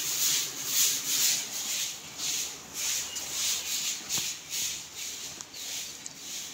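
Rhythmic scuffing and rubbing about twice a second from someone walking while holding the recording phone: footsteps mixed with the phone rubbing against a hand or clothing.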